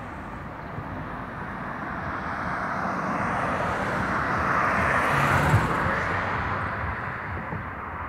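A car passing on the street, its tyre and road noise swelling to a peak about five seconds in and then fading.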